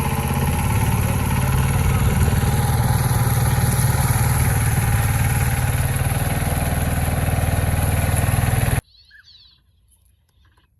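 A small engine running steadily at an even, low speed, which cuts off abruptly about nine seconds in. Afterwards only faint short sounds remain.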